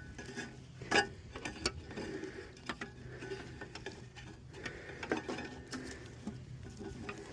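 Irregular clicks, taps and rustling of hand work on a lawn mower's blade, pulling wrapped coaxial cable free. The sharpest click comes about a second in.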